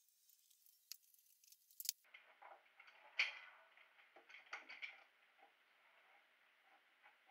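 Faint clicks and taps of metal bar clamps being slid and tightened on a wooden frame, the sharpest about two and three seconds in and a quick cluster a little after the middle.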